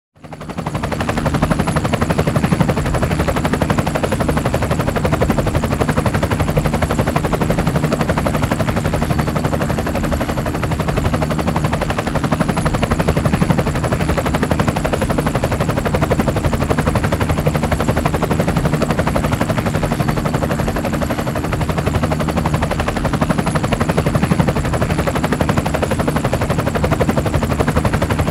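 Helicopter sound effect: a fast, steady rotor chop with a thin high whine above it, fading in over the first second.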